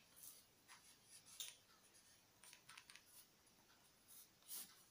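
Faint scratching of a pen writing on paper, in short separate strokes.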